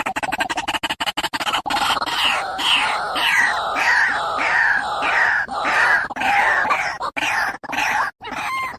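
White-breasted waterhen calling loudly: a fast stuttering chatter, then a run of harsh, evenly repeated notes about three a second, breaking into ragged calls near the end. A lure recording of the species' territorial call.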